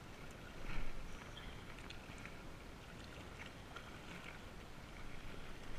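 Small wind-driven waves lapping against a rocky lakeshore, with wind rumbling on the microphone; a few faint ticks and splashes, and a brief louder swell about a second in.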